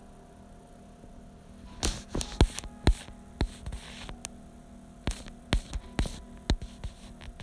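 Phone being handled and moved around: an irregular string of sharp knocks and rubbing on the microphone starting about two seconds in, over a faint steady hum.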